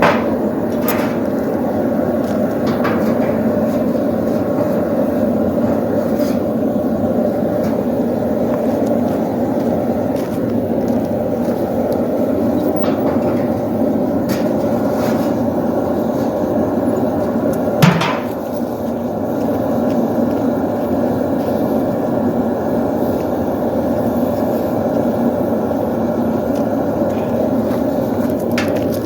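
Blacksmith's forge running with a steady roar, with a few scattered metal knocks and clanks over it; the loudest comes a little past the middle.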